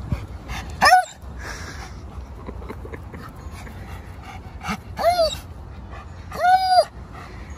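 Alaskan malamute vocalising, three short high-pitched calls that rise and fall: one about a second in, then two more near the end, the last one the longest.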